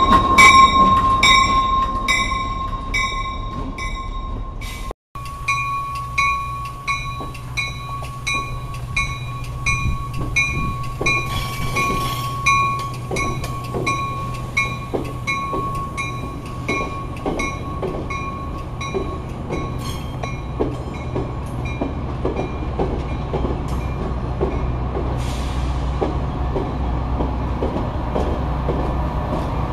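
A Metra diesel commuter locomotive's bell rings about three strokes a second as the train passes close by, and fades away over the first twenty seconds. The bilevel coaches roll past with their wheels clicking over rail joints, under a steady low rumble.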